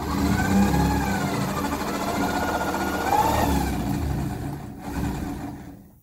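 Shop vacuum running, sucking up insulation dust. Its motor whine wavers up and down as the airflow changes, and it winds down over the last second as it is switched off.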